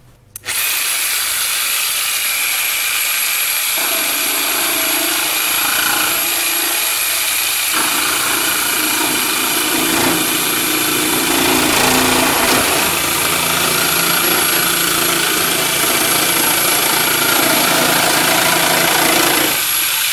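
Corded Bosch jigsaw sawing through the Jeep Wrangler JK's plastic OEM fender flare and the tape over it, starting about half a second in and running steadily with a thin high whine.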